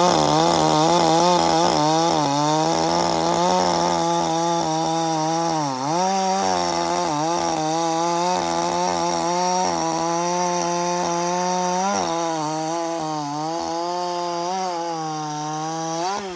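Echo CS-4510 two-stroke chainsaw running at full throttle, cutting wood. The engine note dips and recovers twice, then falls as the throttle is let off near the end.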